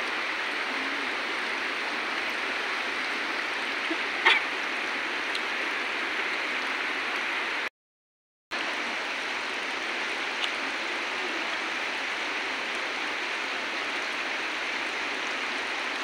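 Shallow mountain stream flowing over rocks, a steady rushing. A short sharp sound stands out about four seconds in, and the sound drops out completely for under a second near the middle.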